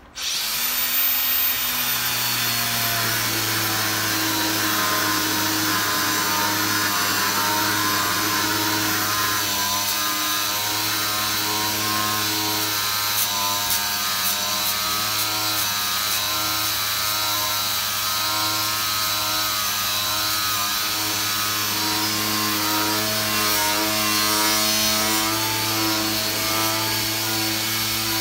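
Makita 18V cordless angle grinder spinning up at the start, then running steadily with a fibre (Scotch-type) surface-cleaning disc pressed against a steel plate, scrubbing off rust: a steady motor hum under a dry, abrasive rasp.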